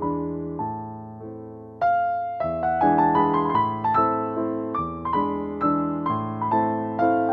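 Background piano music: single notes and chords struck and fading away, softer at first and then louder from about two seconds in.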